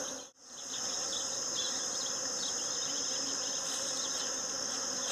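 Bees buzzing as they forage on the blossoms of a flowering pitanga (Surinam cherry) tree, Africanized honeybees and native bees together, over a steady high-pitched insect drone. The sound cuts out briefly just after the start.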